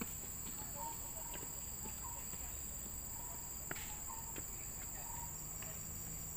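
Steady high-pitched drone of insects, with short chirping notes near the middle of the range repeating roughly once a second and a few faint clicks.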